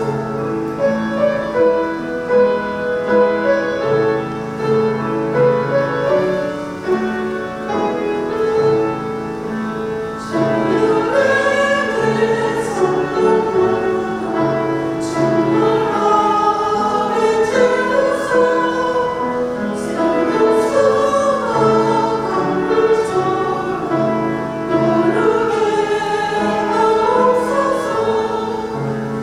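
Women's choir singing a hymn with piano accompaniment, the voices getting fuller and louder about ten seconds in.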